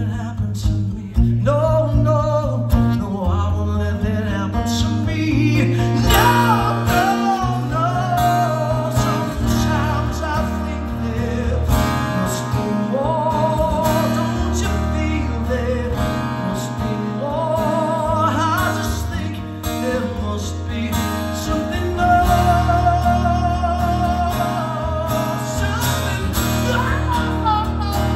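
A man singing live to his own strummed acoustic guitar, holding long notes with vibrato over the chords.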